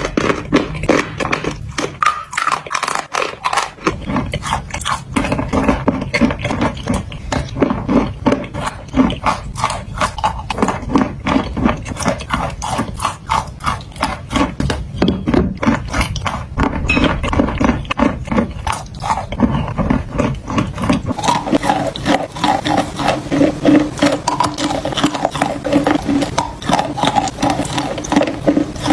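A blue fish shape of crunchy clay being crushed and squeezed by hand: rapid, irregular crunching and crackling. About two-thirds of the way through it becomes a denser, more continuous crumbling.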